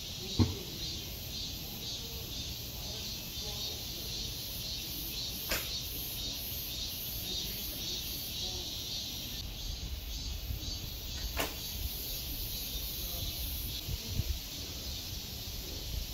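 Bowstrings of traditional Korean bows snapping as arrows are loosed: three sharp cracks, the first and loudest just after the start, the others about five and a half and eleven seconds in. Behind them a loud, high, finely pulsing chorus of cicadas.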